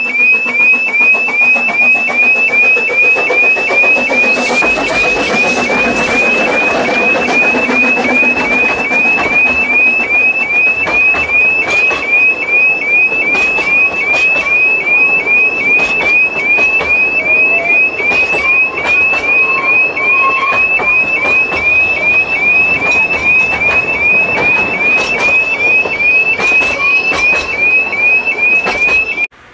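Level crossing warning alarm chirping steadily about twice a second as a narrow-gauge steam train passes, with the train's rumble and sharp wheel clicks over the rail joints beneath it. The alarm cuts off suddenly near the end.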